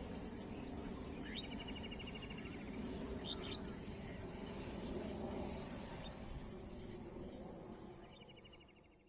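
Evening outdoor ambience: crickets trilling steadily at a high pitch over a low background rumble, with a short rapid trill twice (about a second and a half in and near the end) and a couple of brief bird chirps; the whole fades out near the end.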